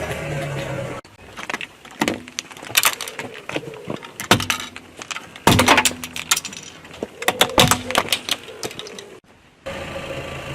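Eyeglasses cracking and snapping under a car's tyre: irregular clusters of sharp crunches and clicks over about eight seconds. A steady running sound comes before them, cutting off about a second in, and starts again near the end.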